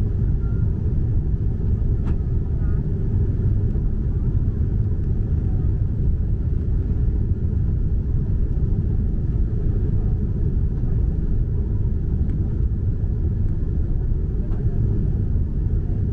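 Steady low rumble of cabin noise inside a Boeing 747-8 on approach, from the engines and the airflow over the extended flaps.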